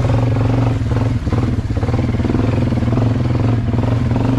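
An engine running steadily at a constant pitch, with a low hum.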